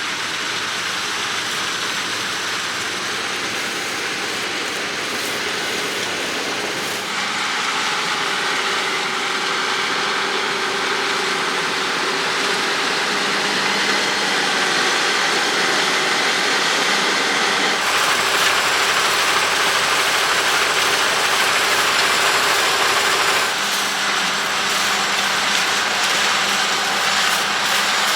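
John Deere X9 1100 combine harvester running while harvesting wheat: a steady mechanical din of engine and threshing machinery with a held whine over it. The sound grows brighter and louder about a quarter of the way in and again past the middle, then eases slightly near the end.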